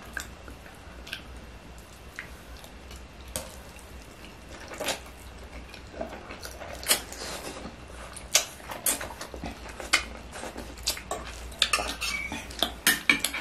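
Metal forks and spoons clinking and scraping as noodles are twirled and scooped, in irregular sharp clicks that come more often near the end. Noodles are slurped and chewed along the way.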